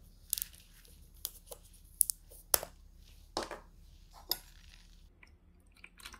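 Plastic makgeolli bottle handled and its screw cap twisted open: a scattering of short, sharp plastic clicks and crinkles.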